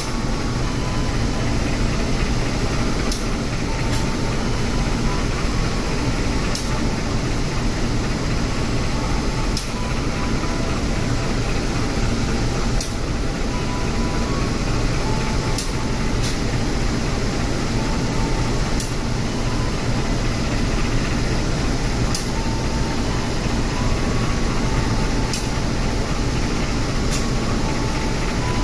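Passenger train standing at the platform, its diesel locomotive idling with a steady low rumble, with faint short ticks every couple of seconds.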